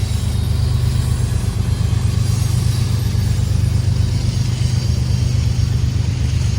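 Diesel locomotive engine running steadily, a low, even rumble.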